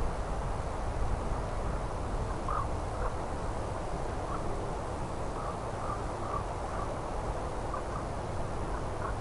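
Steady low rumbling wind noise on the microphone across open lake ice, with a few faint short chirps scattered through it.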